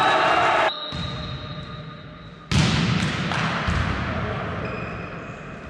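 Volleyball play in an echoing sports hall: ball hits and players' noise ring on in the hall's reverberation. A loud hit about two and a half seconds in dies away slowly.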